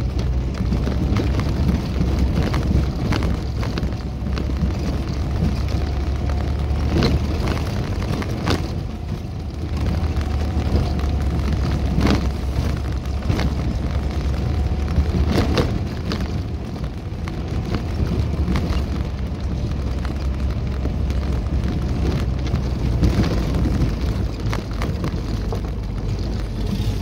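Off-road vehicle driving on a rough gravel dirt track, heard from inside the cabin: a steady low engine and road rumble, with frequent sharp knocks and rattles as the vehicle goes over bumps and stones.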